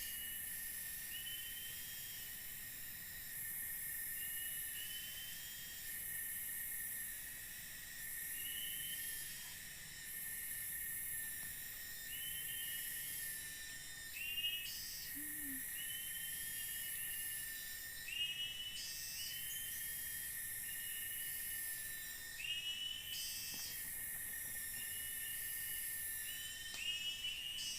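Forest insect chorus, a steady high-pitched drone, with short rising chirps repeating in twos and threes every second or two.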